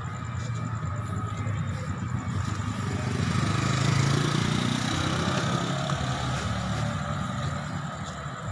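A vehicle engine passing on the street, its rumble growing to loudest about halfway through and then fading, over a steady street hiss.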